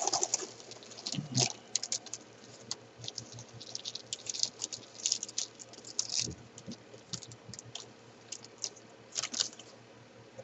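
Tiny cardboard jigsaw puzzle pieces being dumped out and spread, making scattered light clicks and patter in uneven bursts.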